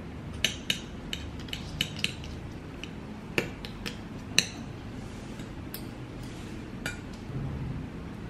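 Metal knife and fork clinking and scraping on a ceramic plate as cooked chicken is shredded: a run of irregular sharp clinks, the loudest about four and a half seconds in.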